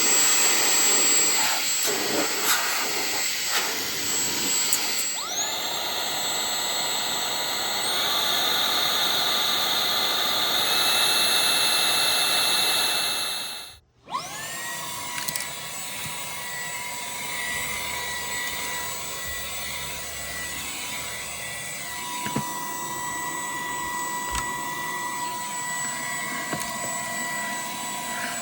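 Small cordless handheld vacuum-blower motor running with a steady high whine over a rushing of air. About five seconds in it spins up to a higher pitch and steps up twice more; midway it cuts out for a moment, then spins back up and runs steadily.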